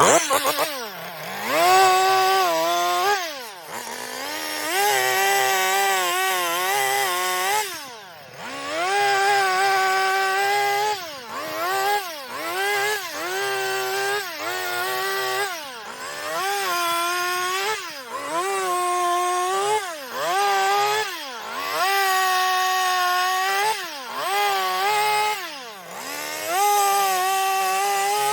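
Chainsaw cutting into wood while carving a mushroom cap: the engine revs up for each cut of a second or two and drops back to idle between, over and over, about a dozen times.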